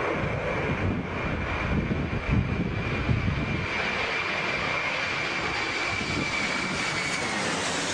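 An airliner's jet engines with a steady high whine, over gusty wind rumbling on the microphone for the first few seconds. The whine drops slightly in pitch near the end.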